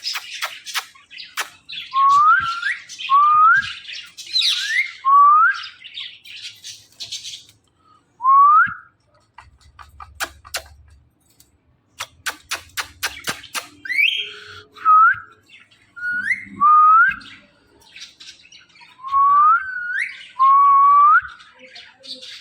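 Indian ringneck parakeet making about ten short whistles that rise in pitch, between runs of rapid sharp chirps and clicking chatter near the start and about twelve seconds in.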